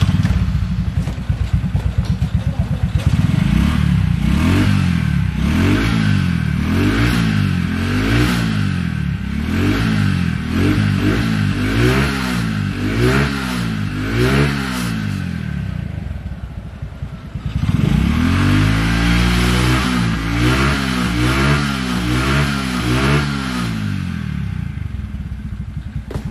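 Small motorcycle engine (from a Honda Supra) in a homemade microcar, revved over and over in quick blips that rise and fall about once or twice a second, with a short settle back toward idle about two-thirds of the way through. The engine is blowing smoke as it runs.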